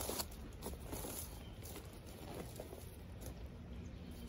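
Footsteps crunching through dry leaves and twigs as someone climbs a slope, the scattered crackles fading as the steps move away.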